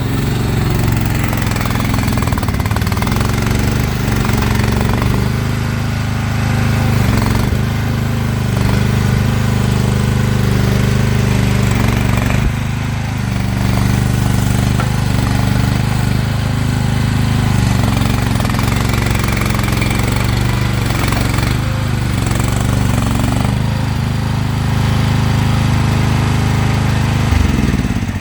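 Mini skid steer's Briggs & Stratton 13.5 horsepower engine running throttled up, working the hydraulics during digging, with a steady engine note. It drops away abruptly at the very end.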